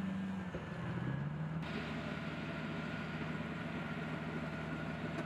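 M109 Paladin self-propelled howitzer's diesel engine running, a steady low hum that dips in pitch briefly about a second in, with a brighter hiss joining shortly after.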